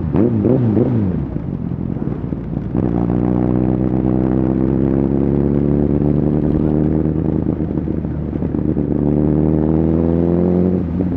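Honda CBR1000RR Fireblade SC77 inline-four with an aftermarket Shark Factory exhaust running under way, its note steady and slowly climbing as the bike pulls in one gear. In the first second other engine notes rise and fall across it, and near the end the note breaks off briefly.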